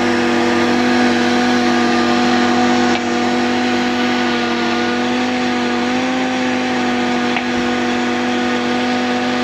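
Countertop drink blender motor running steadily at a constant pitch, then cutting off abruptly right at the end.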